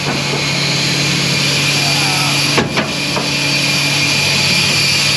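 Grain drying machinery (dryer fan and wet-bin filling equipment) running with a loud, steady hum and a high whine, and a couple of short knocks about halfway through.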